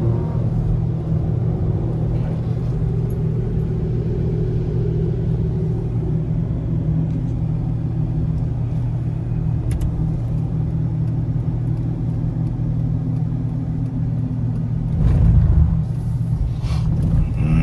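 Car engine and road rumble heard from inside the cabin while driving at low speed: a steady low hum with a slowly shifting engine note, and a brief louder rumble about fifteen seconds in.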